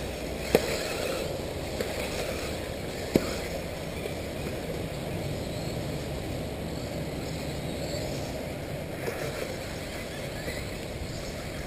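1/8-scale electric RC off-road buggies running on the track: a steady noise of motors and tyres, with two sharp knocks, one about half a second in and one about three seconds in.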